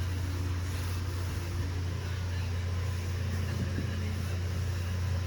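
A steady low hum under an even background hiss, with a couple of faint knocks about three and a half seconds in.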